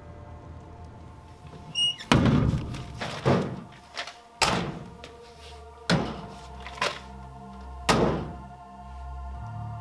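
School locker doors being opened and banged shut, about six sharp knocks, the first about two seconds in and the last near the end, over sustained background music.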